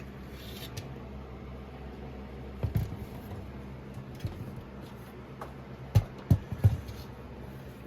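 Steady low hum of a Lakewood room fan running, with several short dull thumps, the loudest three close together about six seconds in.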